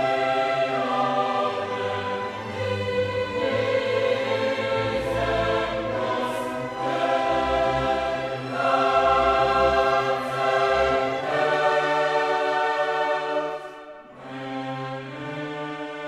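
Classical music: a choir singing with an orchestra, holding long chords. Near the end it drops to a quieter passage.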